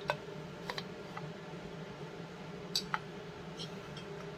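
A few scattered light clicks and taps of a metal punch and chainsaw engine parts being handled, over a faint steady hum.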